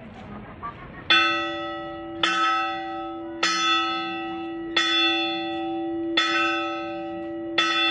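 Hermitage bell at San Juan de Gaztelugatxe rung by hand with its pull rope: six strikes about every second and a quarter, starting about a second in, each ringing on into the next. It is rung to make a wish, as the custom at the top of the steps asks.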